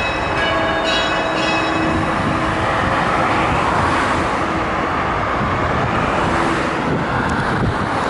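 Orthodox church bells struck in quick succession for the first two seconds, their ringing tones over a steady rushing noise. From about two seconds in the bells fall away and the steady rushing noise carries on alone.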